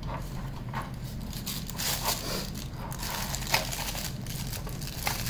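Clear plastic wrapping crinkling and crackling as it is handled, in an irregular run of small crackles.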